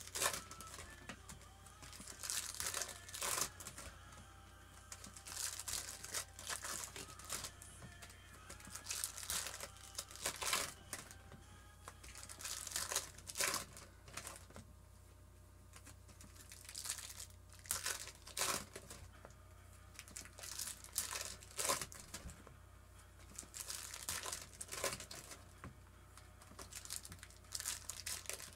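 Foil wrappers of trading-card packs crinkling and tearing as the packs are ripped open by hand, in irregular short crackly bursts every second or two.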